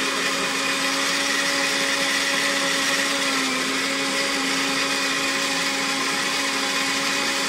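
Moulinex electric mini chopper running steadily with an even motor whine, blending aloe vera gel with oils into a cream.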